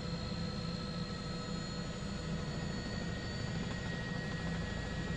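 Steady drone of a news helicopter's engine and rotor, with a low throb and a few constant high tones over it.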